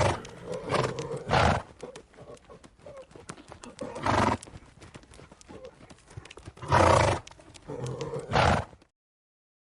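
A horse snorting in short, noisy blows, about six of them spread through, over light clip-clopping hoof clicks. The sound cuts off abruptly about a second before the end.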